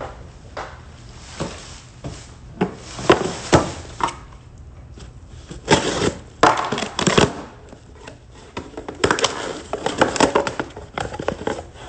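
Cardboard boxes being handled and a shipping box pulled open: irregular knocks, scrapes and rustling of cardboard in bursts, with the busiest stretches about three, six and nine seconds in.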